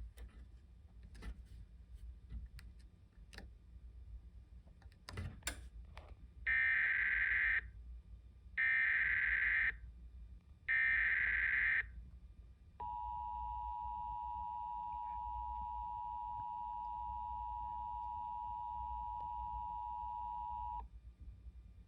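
Emergency Alert System relay from a TFT EAS 911: three harsh data bursts of about a second each (the SAME header), then the steady two-tone attention signal held for about eight seconds. It is the start of a Flash Flood Warning alert. A few faint clicks come before the bursts.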